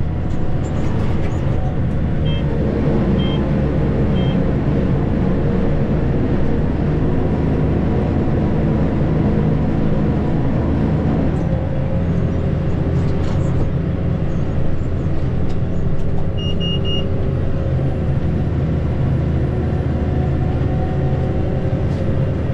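Case Maxxum 125 tractor's diesel engine running steadily under load, heard from inside the cab, its note shifting about halfway through during a headland turn. Short electronic beeps from the cab, three about a second apart near the start and another about two thirds of the way in.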